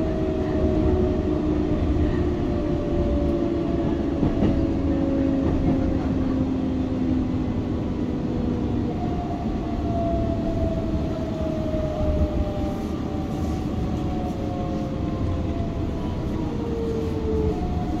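Keihan electric train heard from inside the passenger car, braking into a station. Under a steady running rumble, the motor whine falls slowly in pitch several times as the train slows.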